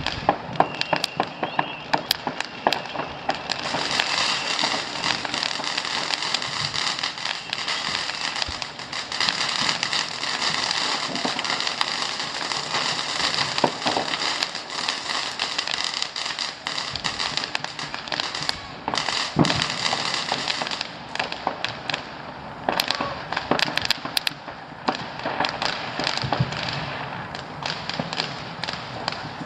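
Fireworks going off: a dense, continuous crackle of many small bangs that thins to scattered separate bangs in the last third.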